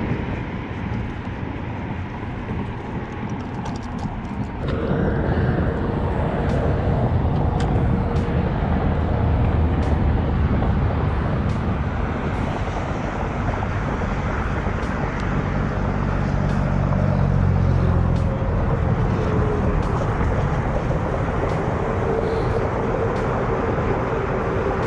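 Road traffic on a bridge: a steady rumble of passing vehicles that grows louder about five seconds in, with a deeper engine hum swelling for a few seconds past the middle.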